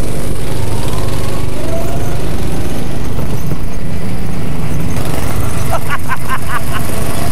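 Go-kart engines running with a steady low buzz as the karts drive round the track. A brief voice is heard about six seconds in.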